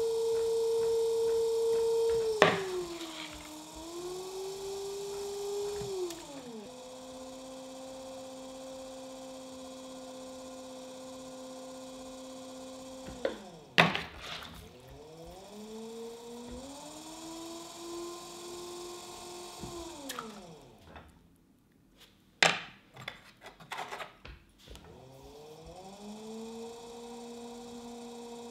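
Electric pottery wheel motor whining, its pitch sliding down and back up as the wheel slows and speeds up. About three quarters through it winds down to a stop, a few sharp clicks follow, and it spins back up near the end.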